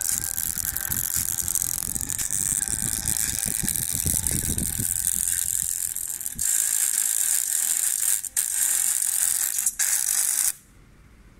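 ASUS laptop's internal speaker crackling and rattling while playing music. The sound drops out briefly twice, then cuts off suddenly near the end as the speaker goes mute. The owner can't tell whether the software or the speaker itself is at fault.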